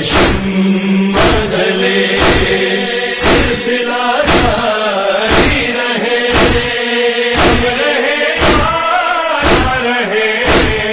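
Urdu noha (mourning lament): voices chanting a wordless melody between sung verses, over a steady thumping beat about once a second.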